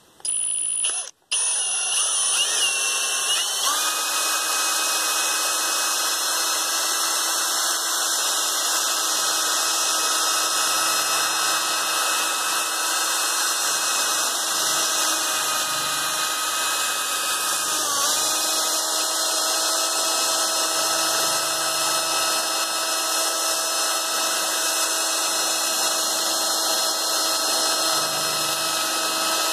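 Electric drill spinning a homemade stretched-wire spiral paint mixer in a can of old oil-based paint. The motor whine starts and cuts out briefly about a second in. It then runs steadily, picks up speed about four seconds in and dips for a moment about eighteen seconds in.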